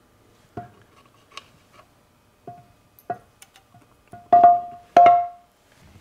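Steel counter gear of a Ford Toploader four-speed clinking against the cast-iron transmission case as it is lowered into the bottom of the case: about six light metallic knocks, each with a short ring, the two loudest near the end.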